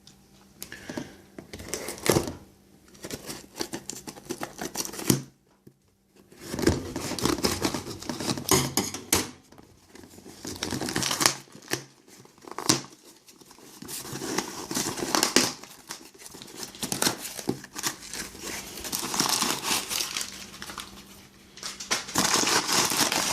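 A shipping package being opened by hand: packing material crinkling and rustling with some tearing, broken by a few sharp knocks and a brief pause about five seconds in.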